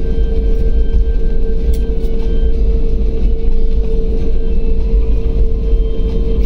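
Cabin noise inside an Airbus A320-family jet airliner taxiing: a steady, heavy low rumble from the engines and the rolling gear, with a steady mid-pitched hum over it.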